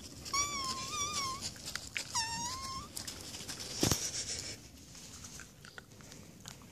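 Beagle puppy whining: two high, wavering cries, the first about a second long and the second shorter, then a single sharp knock about a second later.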